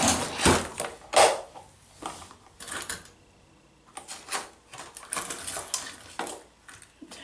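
Earrings and small jewelry pieces clinking and clicking together as they are picked through by hand, in an irregular run of light clatters, the loudest about a second in.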